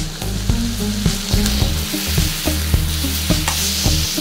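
Chicken pieces frying in a steel pan with a steady sizzle, a spatula stirring them and knocking against the pan.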